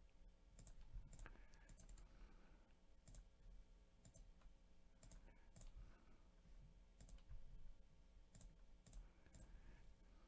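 Near silence with scattered faint clicks of a computer mouse and keyboard.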